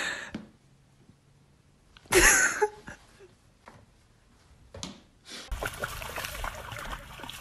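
A dog running through shallow standing water, its feet splashing in a steady patter that starts about five and a half seconds in. Before that, about two seconds in, comes a short, loud burst of noise.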